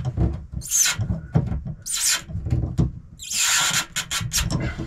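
Scraping and rubbing of hands and parts being worked inside a wooden cockpit locker: a few short scrapes, a longer one about three seconds in, then several quick clicks near the end.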